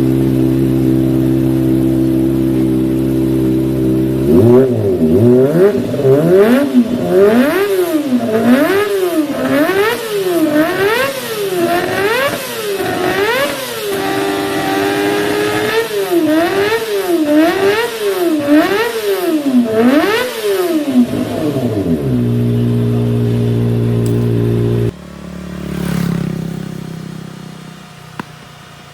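Kawasaki ZX-25R inline-four with an Akrapovic exhaust idling, then blipped through a long series of quick revs, about one a second, held high once midway. It drops back to idle, and then the sound cuts off abruptly near the end.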